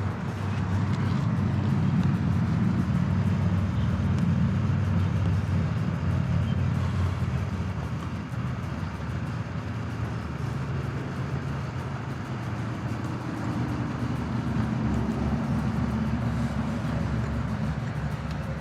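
Steady low rumble of a motor vehicle engine running, with a slight change in its pitch about two-thirds of the way through.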